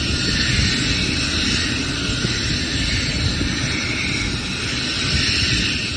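Helicopter running on the pad: a steady, loud turbine and rotor noise with a strong high hiss over a rough low rumble.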